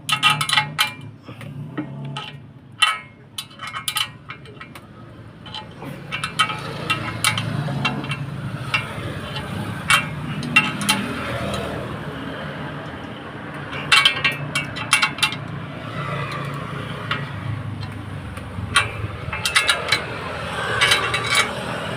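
Irregular sharp clinks and taps, some in quick clusters, over a steady low hum.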